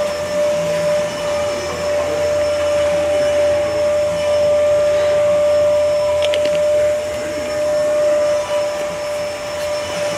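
A steady motor drone with a constant high whine that holds at one pitch throughout. A few light clicks sound about six seconds in.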